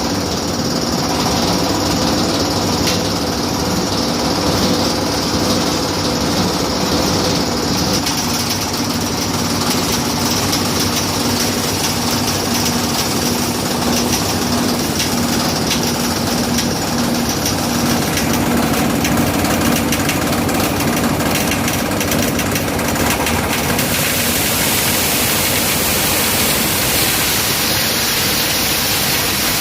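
Hammer mill machine running with a steady, loud mechanical hum and drone. About 24 seconds in, the sound changes to an even rushing noise.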